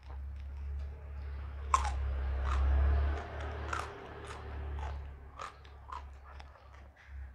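Close-up chewing of raw jengkol (dogfruit), crunching sharply many times with the loudest crunch about two seconds in, over a steady low hum.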